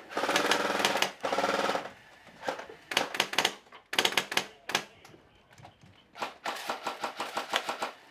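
Airsoft guns firing on full auto close by: two long bursts in the first two seconds, then scattered short bursts and single shots, and a quick run of rapid shots near the end.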